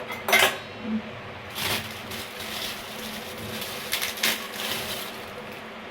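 A few short rustling, scraping handling noises, with a faint steady hum underneath.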